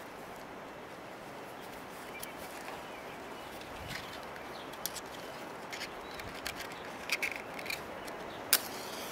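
Steady outdoor hiss with a run of short sharp clicks in the second half, the loudest near the end: a cigarette lighter being flicked several times to light a cigarette.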